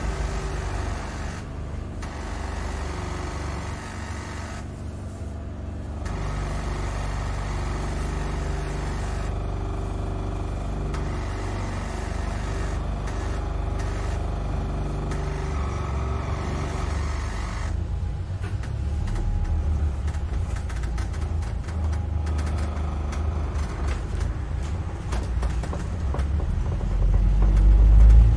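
A London bus heard from inside while under way: a steady low engine and road rumble whose pitch shifts as it runs, growing louder near the end.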